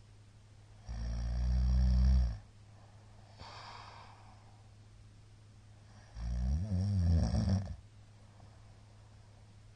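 A middle-aged man snoring loudly in his sleep: two snores about five seconds apart, each lasting about a second and a half, the second wavering in pitch, with a softer breath between them.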